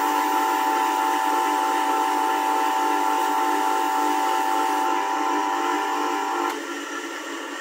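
Bench grinder running with an MDF wheel, a steel wire held against the spinning rim giving a steady high whine. The whine cuts off suddenly about six and a half seconds in as the wire comes away, and the grinder's lower hum carries on.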